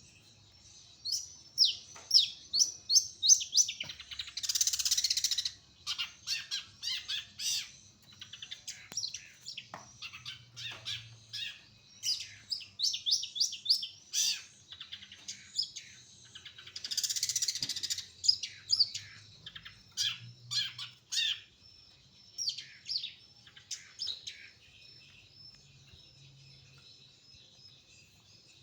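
Long-tailed shrike (cendet) singing: a fast run of short, sharp, high notes that slide downward, broken twice by a harsh rasping call lasting about a second and a half. The song thins out near the end.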